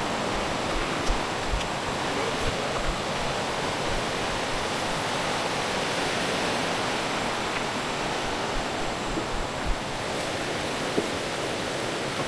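Steady rush of flowing water, like a stream or small cascade beside the trail, with a few soft low thumps.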